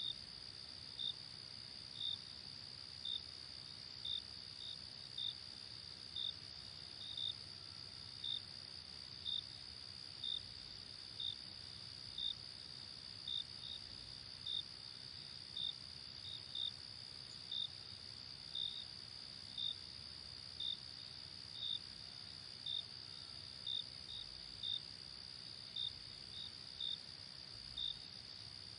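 Night insect chorus of crickets: a steady high-pitched trill, with a louder short cricket chirp repeating about once a second, sometimes doubled.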